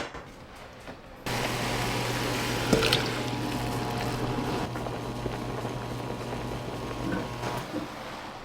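Kitchen tap water running steadily, starting about a second in and stopping near the end, with wet splashing.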